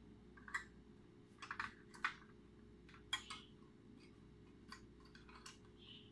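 Scattered small clicks and taps, eight or so spread unevenly, from plastic LED modules and their wiring being handled on a workbench, over a steady low hum.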